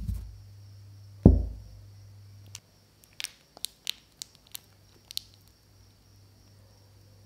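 Two soft thumps on the tabletop, the second louder, then a run of small crisp crackles from a plastic piping bag being squeezed to pipe churro dough.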